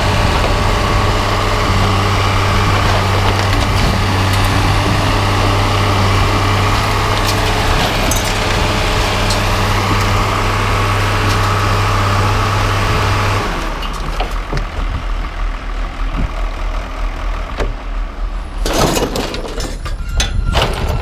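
An engine idling with a steady low hum, which drops away abruptly about thirteen seconds in. Near the end, sharp knocks and scraping come from a broom sweeping out the pickup's bed.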